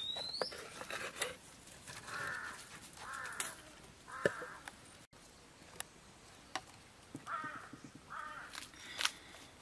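Harsh bird calls, five caws in two groups: three about a second apart, then two more near the end. A short rising chirp comes at the start, and light clicks are scattered throughout.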